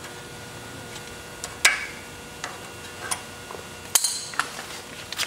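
Hand tools working the cotter pin out of a motorhome's outer tie rod end: scattered metallic clicks and clinks of steel on steel, with two sharper ringing strikes, one just under two seconds in and one about four seconds in.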